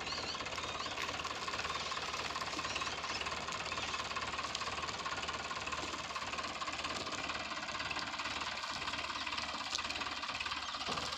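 Powertrac Euro 55 tractor's diesel engine running steadily under heavy load, pulling a trolley piled high with sugarcane.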